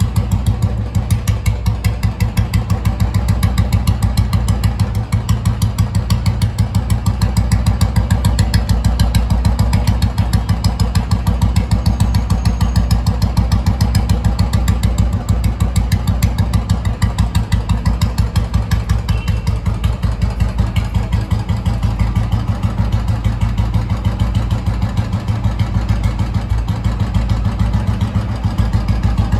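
2003 Royal Enfield Bullet's single-cylinder four-stroke engine idling through its exhaust, with a slow, even thump.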